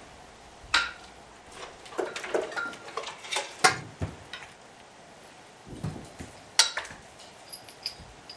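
Metal helicopter parts being handled and set down among other parts: a scattering of sharp metal knocks and clinks, a few ringing briefly.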